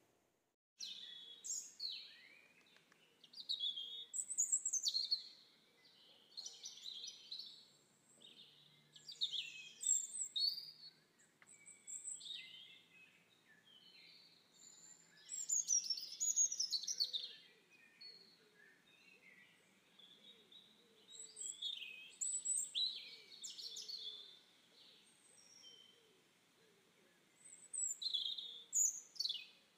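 Birds singing and calling: many short, high chirps and whistled phrases that rise and fall, coming in bursts every second or two.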